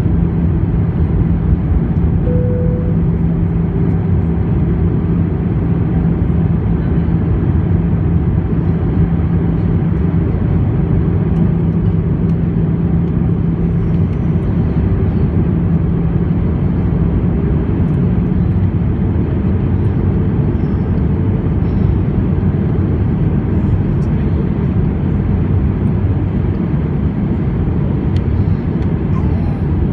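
Cabin noise of an Airbus A319 in flight: a steady roar of engines and rushing air, with a low hum at one pitch that fades out a little past halfway.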